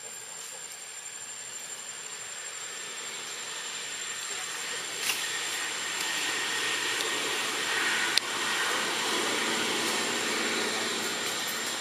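A broad rushing noise that slowly swells over several seconds and eases a little near the end, with a thin, steady high-pitched whine running under it. Two sharp clicks stand out, about five seconds in and again about eight seconds in; the second is the loudest sound.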